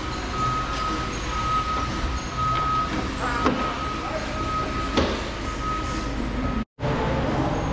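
A heavy vehicle's diesel engine running steadily, with a high electronic warning beeper sounding over and over, about once or twice a second. Two short clicks come in the middle, and the sound cuts out for an instant near the end.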